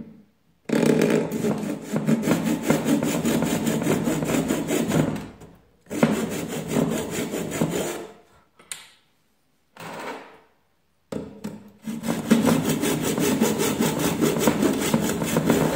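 Hand saw blade sawing through a Samsung TV's printed circuit board. It goes in four stretches of steady sawing with short breaks between, the longest in the first half and again near the end.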